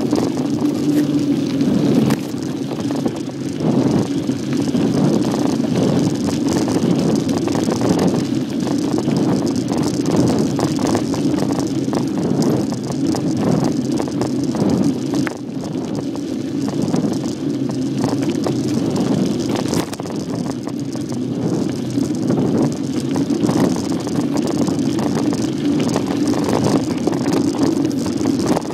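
Bicycle ridden over a rough dirt trail: a steady rumble of tyres and ride noise with frequent small rattles and knocks from the bumpy ground.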